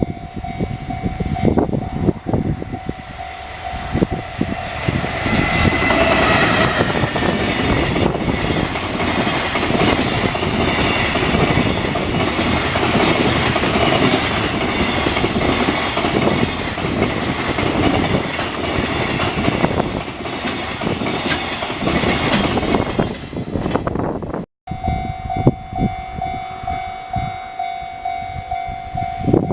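A Japanese level-crossing warning bell rings steadily as a train passes over the crossing at speed, with a long run of loud wheel-and-rail clatter over the joints. After a brief cut near the end, the crossing bell rings again over quieter rumbling as the next train nears.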